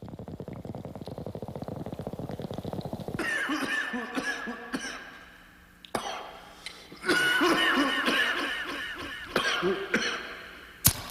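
A scuba diver breathing out through a regulator, with exhaled bubbles gurgling and burbling in two long breaths that fade away.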